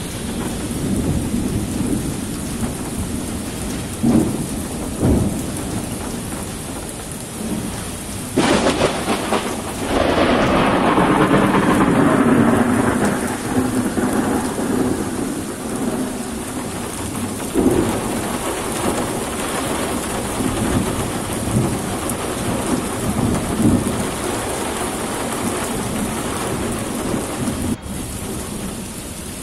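Heavy thunderstorm rain pouring steadily, with thunder: a sudden loud clap about eight seconds in, followed by a long rumble lasting several seconds, and smaller rumbles before and after.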